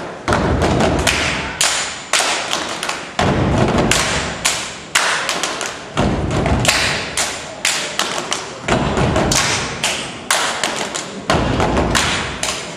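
Step team stomping feet and clapping in rapid, rhythmic patterns, each hit echoing briefly in the hall.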